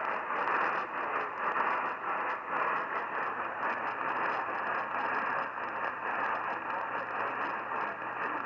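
AM radio static: a steady rushing hiss with crackle from a receiver tuned to a weak, distant AM station, with a faint steady high tone underneath.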